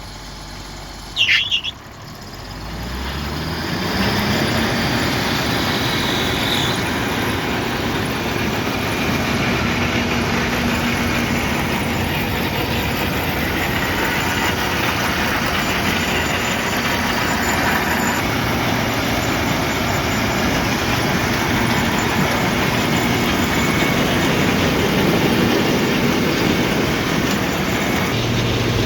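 Hay Buster H1100 tub grinder spinning up: a brief high squeal about a second in, then the drive winds up in pitch over a couple of seconds and settles into steady, loud running with a rushing mechanical noise.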